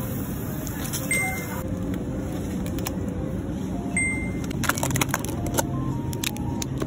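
Soft background music over the steady hum of a supermarket, with a short high ding about a second in and again at about four seconds, and a few sharp clicks of packages being handled around the five-second mark.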